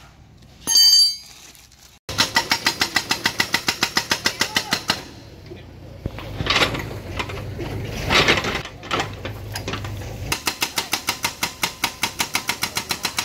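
Soosan hydraulic breaker on an excavator hammering at rubble, a fast even train of blows at about ten a second. The blows stop for a few seconds in the middle, leaving the excavator engine running with some uneven louder swells, then start again. A short loud tone sounds about a second in.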